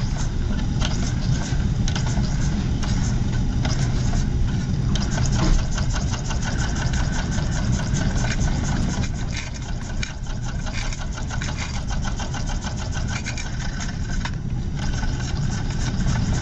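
Small model steam engine running at speed: a fast, even run of clicking strokes over a steady low hum.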